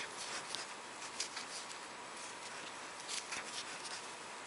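Faint rustle of yarn and a few small ticks of a metal crochet hook as single crochet stitches are worked, over a steady hiss.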